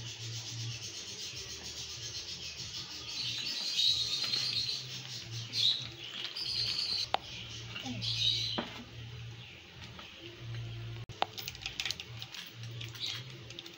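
Mustard and cumin seeds sizzling in hot oil in a nonstick pan, with sharp crackling pops from the seeds in the last few seconds. Several high chirps come through in the middle.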